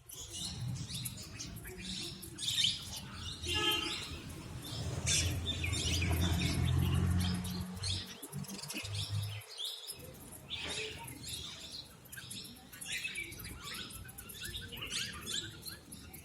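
A parrot chirping in many short, high calls, with one longer, lower call about three and a half seconds in. A low rumble runs underneath and stops about ten seconds in.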